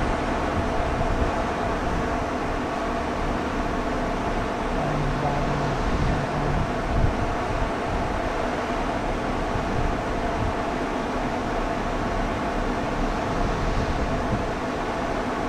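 Steady mechanical hum with a low rumble, unchanging in level.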